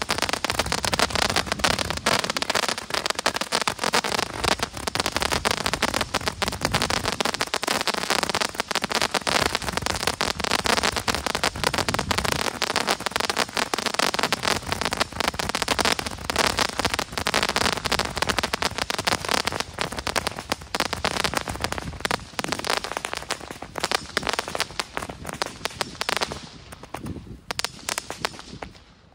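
Store-bought ground firework crackling: a dense, continuous stream of small sharp pops that thins out and dies away near the end.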